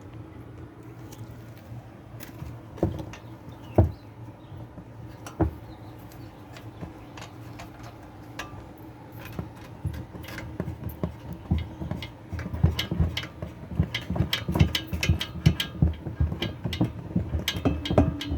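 Clicks and knocks of washing-machine parts being handled and fitted back together: a few separate knocks at first, then a dense run of clatter over the last several seconds, all over a steady low hum.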